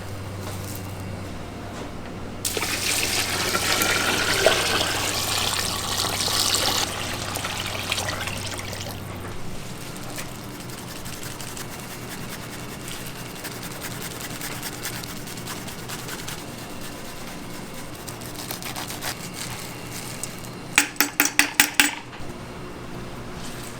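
Restaurant kitchen sounds. A loud rush of water-like hiss runs for a few seconds over a steady low hum, then near the end comes a quick run of about six sharp knocks within a second.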